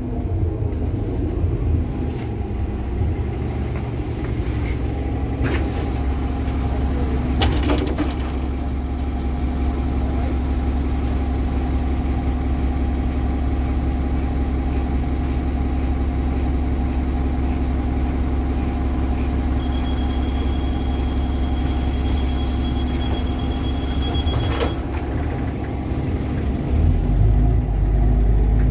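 Inside a city bus: the engine hums steadily at a stop, with two short hisses of compressed air early on. Later a high door-warning beeper sounds for about five seconds. The engine grows louder near the end as the bus moves off.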